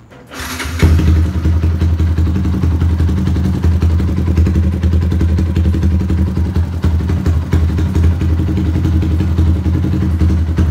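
Yamaha Y15ZR's 150 cc single-cylinder four-stroke engine starting up about a second in, then idling steadily.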